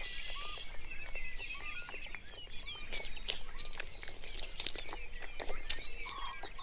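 Koi crowding and gulping at a pond surface, making a dense patter of small splashes, plops and slurps.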